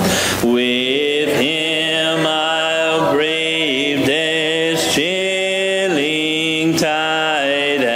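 A congregation singing a hymn a cappella, holding each note and moving to the next about once a second, with short breaks between phrases.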